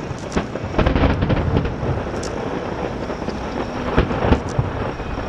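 Fireworks display: aerial shell bursts booming and rumbling over a continuous crackle, with sharp bangs about a second in and again about four seconds in.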